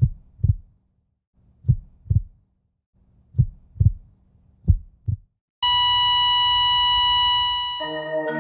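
Heartbeat sound effect: four double thumps, lub-dub, then a long steady beep like a heart monitor flatlining, which fades as mallet-like music comes in near the end.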